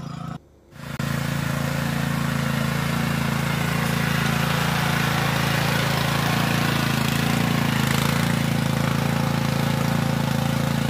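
Small engine of a walk-behind rotary tiller (hand tractor) running steadily under load while it churns soil. The sound cuts out briefly about half a second in and returns within a second.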